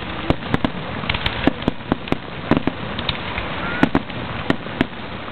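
Fireworks going off in a rapid, irregular string of sharp bangs and pops during a show's finale.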